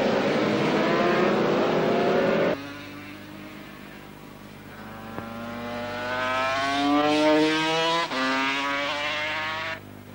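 Grand Prix racing motorcycles at full throttle. One bike's rising engine note breaks off abruptly about two and a half seconds in. Then another bike is heard coming closer, its note climbing, dropping briefly at a gear change about eight seconds in and climbing again, before the sound breaks off abruptly near the end.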